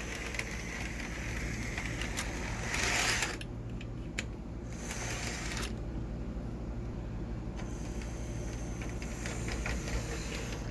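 HO-scale model diesel locomotive, a CSX GP40, running along the track: the steady whir of its small electric motor and gears, with a few light clicks.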